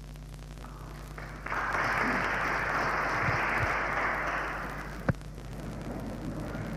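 Audience applauding, breaking out about a second and a half in and fading away after about three seconds, with one sharp knock near the end. A steady low hum runs underneath.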